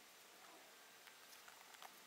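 Near silence: room tone, with a few faint clicks in the second half.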